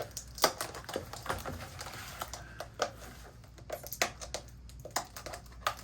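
Irregular clicks, taps and rustles of a taped shipping package being opened by hand.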